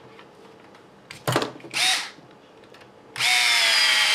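Cordless drill-driver with a hex bit driving screws into a plastic RC car chassis: a knock, a short burst about two seconds in, then a steady run with a high motor whine from about three seconds in.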